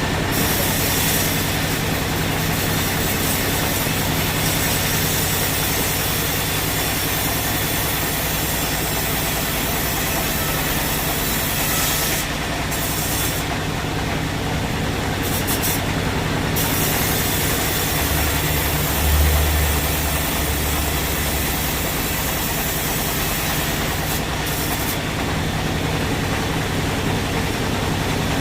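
Sawmill machinery running steadily, with a low engine or motor hum under a broad hiss and a brief low swell about two-thirds of the way through.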